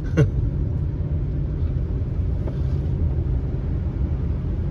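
Steady low rumble of a truck's engine and tyres heard from inside the cab while driving, with one brief sound about a quarter second in.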